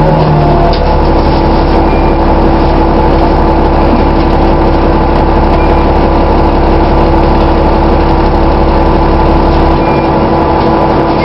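Dennis Trident double-decker bus running, a steady mechanical drone with a constant pitched tone sounding above it; the low rumble changes near the end.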